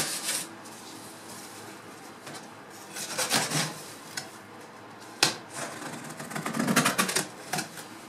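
Cardboard shipping box being opened by hand: tape being cut and cardboard flaps scraping and folding open in a few scratchy spells, with a sharp click about five seconds in.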